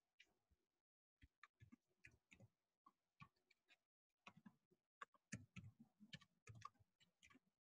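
Faint clicks of typing on a computer keyboard: a few scattered keystrokes at first, then a quicker run of keystrokes in the second half.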